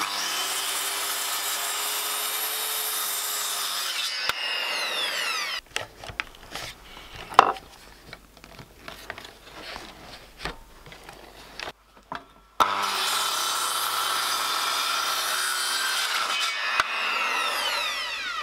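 Handheld electric circular saw cutting through a wooden board twice, each cut about four seconds long, the motor's whine falling away as the blade spins down after each cut. Between the cuts come quieter knocks and clicks, with one sharp knock about seven seconds in.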